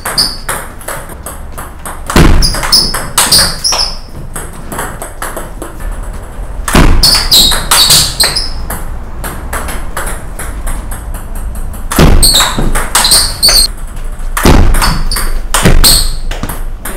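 Celluloid-type table tennis ball struck back and forth with rubber-faced paddles and bouncing on the table in a fast drill rally. The clicks come in several quick bursts with short lulls between them.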